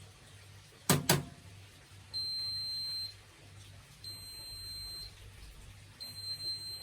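Zanussi Jetsystem IZ16S washing machine sounding its end-of-cycle signal: three long, high single-tone beeps about two seconds apart, marking that the wash and spin programme is finished. Two sharp clicks come about a second in, before the beeps.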